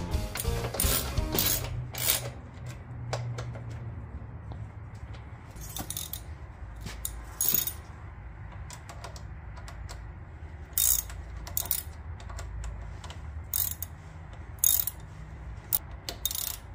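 Hand socket ratchet clicking in short bursts, a few strokes at a time, spaced a second or more apart, as bolts are tightened.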